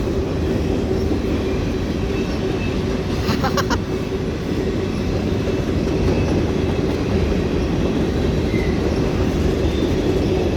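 Long freight train rolling past, its cars making a steady rumble with a steady tone running through it. There is a short run of sharp clanks about three and a half seconds in.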